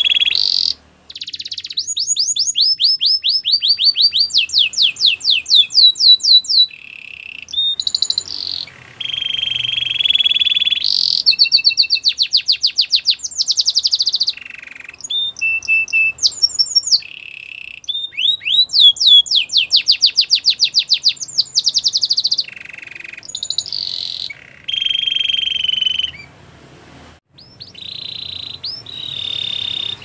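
White canary singing a long song: fast runs of repeated sweeping notes alternate with held, buzzing trills, and short breaks fall between phrases.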